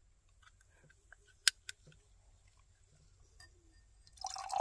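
Fingernail picking at the pull tab of an aluminium energy-drink can: faint ticks, then a sharp click about a second and a half in. Near the end, the fizzy drink starts pouring from the can into a glass flute.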